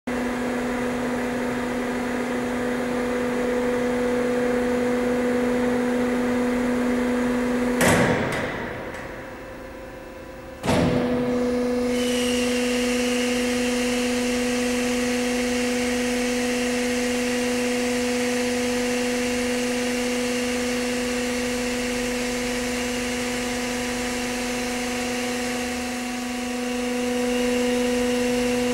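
Steady machine hum from a heavy hub turner's drive as it rotates a wind-turbine hub: a low tone with its octave above. About eight seconds in there is a knock and the hum dies away. It cuts back in abruptly nearly three seconds later, and a higher whine joins it soon after.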